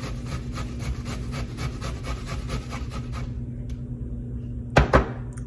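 Red onion being rubbed over a hand grater: quick rasping strokes, about five a second, that stop about three seconds in. Two sharp knocks come near the end.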